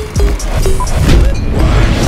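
Music with a heavy bass beat and sharp percussive hits layered over it.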